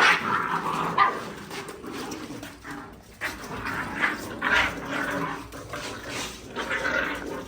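Puppies yipping and barking angrily while eating, short sharp cries coming about once or twice a second.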